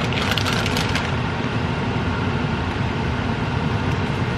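Stove range-hood exhaust fan running with a steady low hum. A plastic bag of shredded cheese crinkles in the first second.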